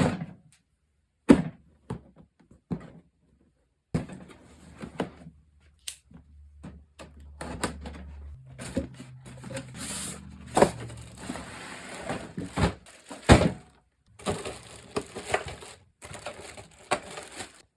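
Unboxing handling noise: a cardboard box and its packaging knocked, slid and rustled, with irregular thuds and clicks. It comes in short stretches broken by moments of dead silence.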